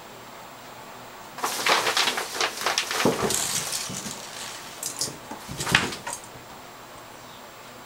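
Clear plastic shower curtain crinkling and rustling as a kitten pushes into and bats at it, with paws scrabbling on the bathtub. A crackly run of rustles starts about a second and a half in and dies away after about six seconds.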